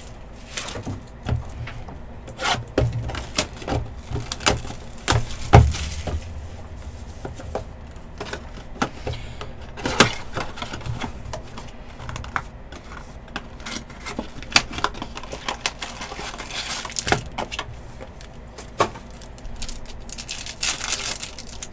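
Sports trading cards handled on a table: irregular light clicks and taps as cards are flipped and set down, with a couple of soft rustles near the end.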